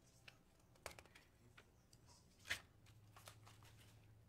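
Near silence: faint room tone with a low steady hum, a few soft clicks and rustles, and one sharper click about two and a half seconds in.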